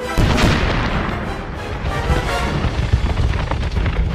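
An animated-film explosion: a loud boom just after the start, followed by a continuous low rumble with scattered sharp cracks, under a film score.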